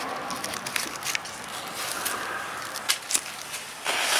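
A jumping jack ground-spinner firework being lit: a few light clicks and crackles, then near the end a loud hissing spray starts as it ignites.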